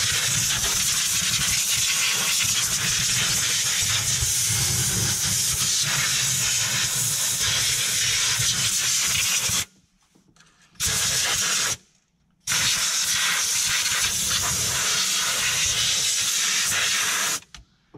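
Compressed air hissing from an air blow gun, blowing dirt out of the spark plug wells of a Ford 4.6 V8 before the plugs are removed. Three blasts, each cut off sharply: a long one of nearly ten seconds, a short one of about a second, and one of about five seconds.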